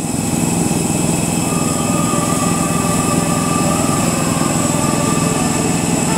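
Jet airliner turbine noise: a steady high whine over a low rumble. A wavering mid-pitched tone comes in at about a second and a half and fades out at about four seconds.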